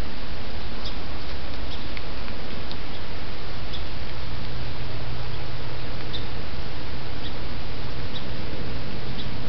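Steady loud hiss from a trail camera's microphone. Faint short high ticks are scattered through it, and a low hum comes in about three seconds in.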